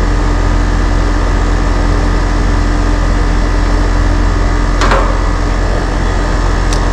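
Air-conditioner outdoor condensing unit running: the compressor and condenser fan motor give a steady low hum with a steady tone above it, and there is a brief rustle about five seconds in. The unit is running normally on its new capacitor and hard start kit, with compressor and fan amps within the tag ratings.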